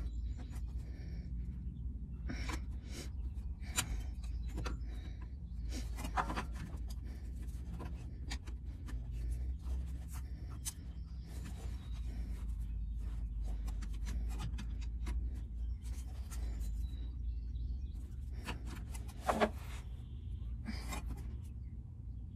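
Irregular clicks and scrapes of a large oil-filter wrench and its handle being worked against the engine's oil filter to loosen it, with one louder click about three-quarters through, over a steady low rumble.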